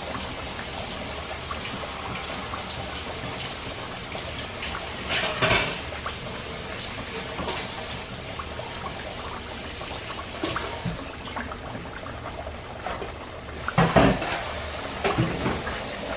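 Floured chicken pieces frying in hot oil in a pan: a steady sizzle with small crackles. A couple of louder knocks stand out, about five and fourteen seconds in.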